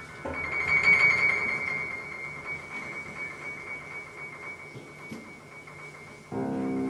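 Music with keyboard sounds: a high note held steadily over a busy texture, then a lower sustained chord comes in near the end.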